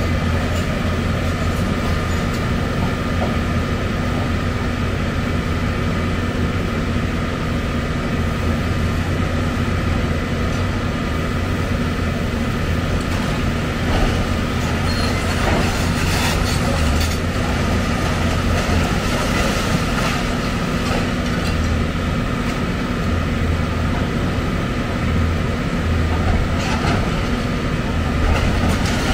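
Heavy excavator's diesel engine running steadily with a deep hum, with a few knocks and clatters from the machine at work.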